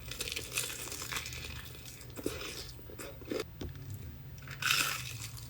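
Crispy fried chicken crust crackling and crunching as it is torn and eaten, with the loudest crunch near the end.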